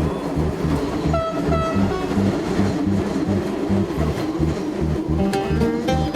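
Background music with a steady low beat; plucked guitar notes come in near the end.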